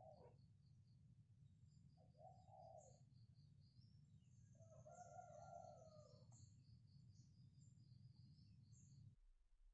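Faint crowing of a cock, twice, over thin high-pitched chirping. A low rumble cuts off sharply near the end.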